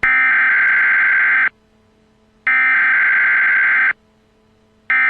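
Emergency Alert System header: data bursts, each about a second and a half long with a pause of about a second between them, two in full and a third starting near the end.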